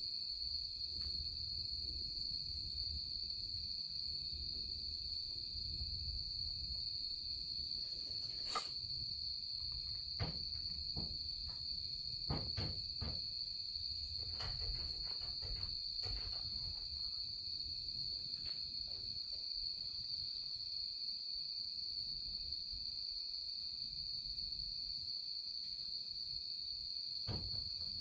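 Steady, high-pitched insect chorus holding one unbroken tone, with a low rumbling hiss underneath and a few faint clicks and knocks now and then.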